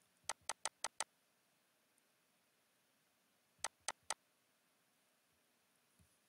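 Computer mouse button clicking: a quick run of five sharp clicks, then three more about three seconds later, over near silence.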